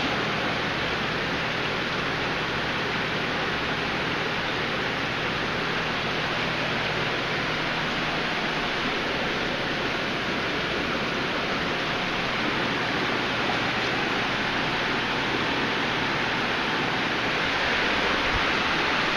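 Steady rushing and splashing of water from aquarium filtration, with a faint low hum beneath.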